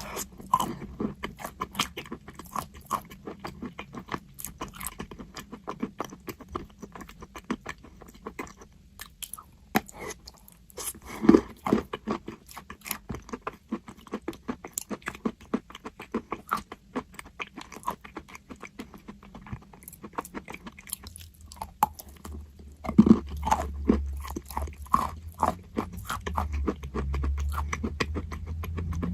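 Crunchy chalk being bitten and chewed: a dense run of crisp crunches, with louder bites about eleven seconds in and again past twenty seconds. A low steady hum comes in with the second loud bite.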